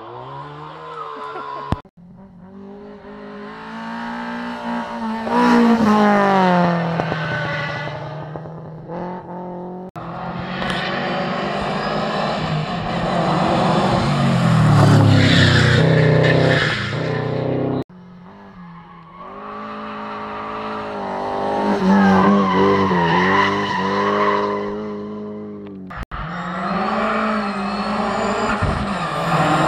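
Rally cars at full speed on a rallysprint stage, engines revving hard and changing gear, the pitch climbing and dropping as they approach and pass. The sound comes in about four separate runs that each stop abruptly, every run rising to a loud peak.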